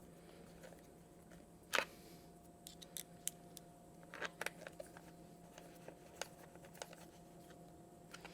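Faint, scattered clicks and taps of hand tools and parts being handled while a motorcycle is reassembled, the loudest about two seconds in, over a faint steady hum.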